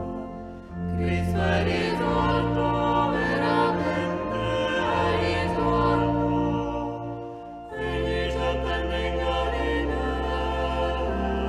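A choir singing a slow sacred chant over long-held low bass notes; one phrase fades out about seven and a half seconds in and the next begins.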